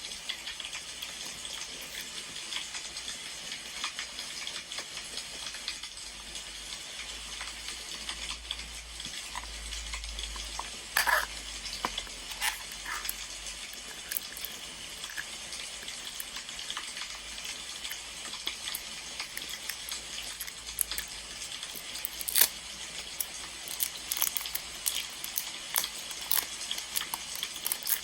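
Wood fire crackling: a steady hiss with scattered sharp pops, and a brief louder cluster of pops about a third of the way through.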